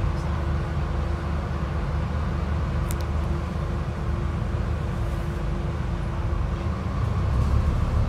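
Engine of a Scania ADL Enviro400 City double-decker bus running steadily, heard from inside on the upper deck, with a thin steady hum over the low rumble. The hum drops away near the end as the engine grows louder, and a couple of faint rattles tick about three seconds in.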